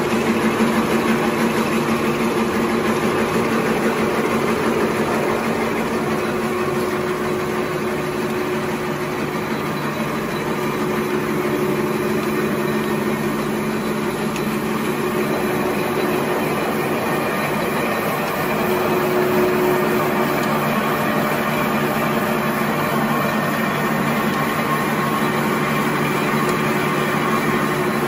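Automatic glue-lamination napkin tissue machine running: a steady mechanical din of motors and rollers with a few held tones, with no breaks.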